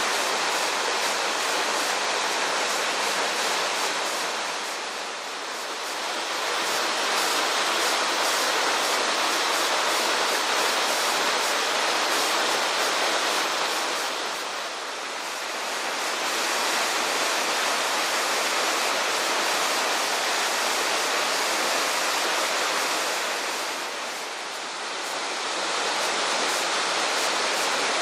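Waterfall rushing steadily, the noise dipping briefly three times about ten seconds apart.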